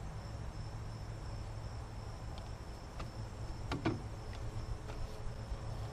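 Insects trilling steadily as a thin high tone over a low background rumble, with a few light clicks and one sharper click about four seconds in.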